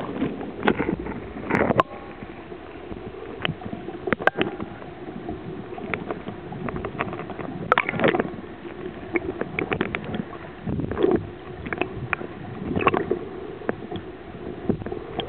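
Muffled underwater sound picked up by a camera under the surface: a steady low drone with irregular clicks and knocks.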